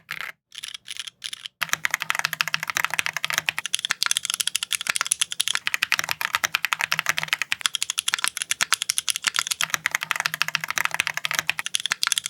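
Keychron Ultra mechanical keyboard with Silk POM switches being typed on. First come a few separate short bursts of keystrokes, then from about a second and a half in, continuous fast typing. Its gasket-mounted, foam-filled build gives a muted, foamy sound.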